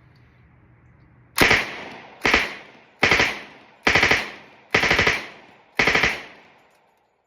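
M1A1 Thompson submachine gun in .45 ACP firing six short bursts of automatic fire, about a second apart, each burst a few rapid shots with an echoing tail, emptying a 20-round magazine.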